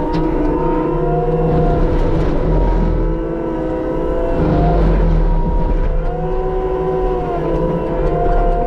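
Case skid steer running hard while its Shearex mulching head spins and cuts. A steady engine drone is overlaid by wavering whines from the mulcher and hydraulics, with a few sharp clicks.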